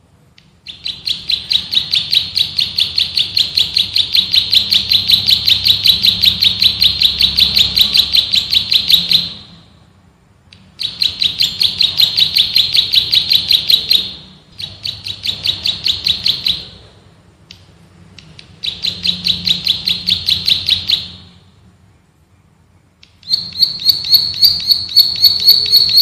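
Prenjak sawah (plain prinia) singing its rapid, drilling trill of tightly packed high chirps, about five a second. It comes in five long runs separated by brief pauses.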